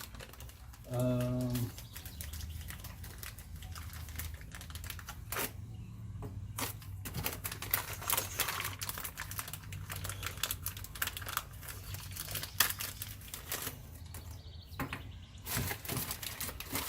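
Handling noise of small parts and packaging: scattered clicks, taps and crinkling, with a brief low hum about a second in.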